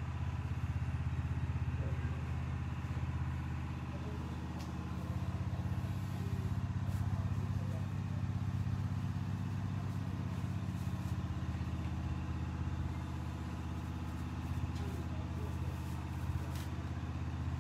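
Steady low mechanical hum of a running motor, constant in pitch, with a few faint ticks.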